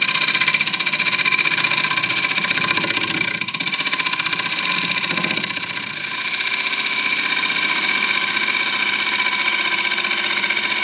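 Wood lathe running, with a bowl gouge cutting into the inside of a spinning mango-wood bowl: a steady machine hum under the continuous rasp of the cut.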